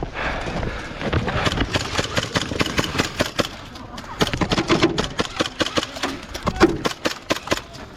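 Airsoft guns firing in a skirmish: a rapid, irregular run of sharp cracks and clicks, thickest in the second half.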